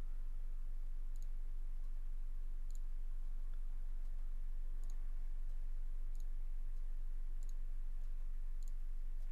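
Faint computer mouse clicks, several in a row a second or so apart, as a button is clicked again and again. Under them runs a steady low electrical hum.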